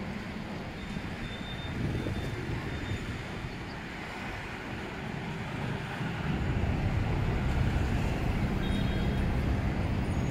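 Steady rumble of vehicle traffic-like noise, growing louder about six seconds in.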